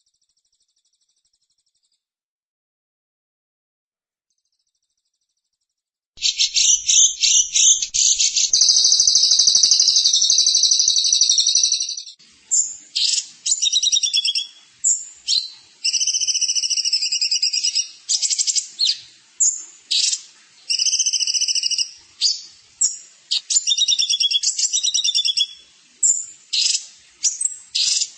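Songbird singing after about six seconds of silence: a loud, high-pitched, rapid trilling song that holds one long unbroken run for a few seconds, then repeats short phrases with brief pauses between them.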